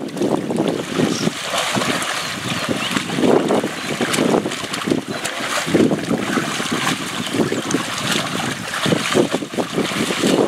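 Wind buffeting the microphone: a loud, uneven rumble that surges and falls every second or so.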